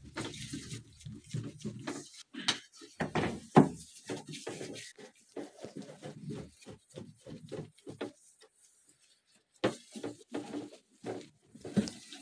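A screwdriver and gloved hands working at the screws of a washing machine's lid: irregular knocks, clicks and scraping, the loudest about three and a half seconds in, with a short lull about two-thirds of the way through.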